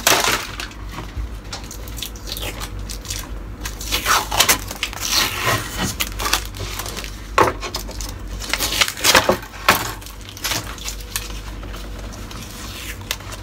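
Paper wrapping rustling as it is peeled off a new pine wooden chopping board, with sharp knocks and clicks, loudest about four, five, seven and nine seconds in, as the board is handled on the table.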